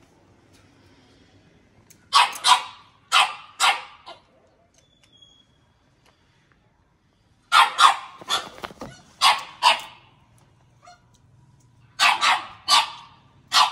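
A dog barking in three bouts of quick, sharp barks, with pauses of a few seconds between the bouts.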